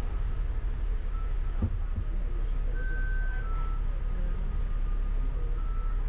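Double-decker bus running along city streets, heard from the upper deck as a steady low rumble. A knock comes about one and a half seconds in, and a few brief high tones sound through the middle.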